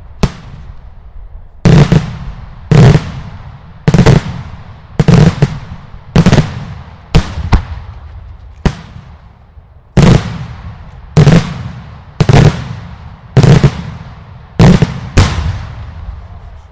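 Daylight fireworks: a run of loud explosive bangs, about one a second, each followed by a short rolling echo.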